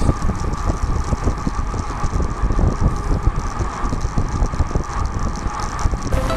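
Wind buffeting and road rumble on a riding bicycle camera's microphone, a rough unsteady noise without a tune; steady music tones come in near the end.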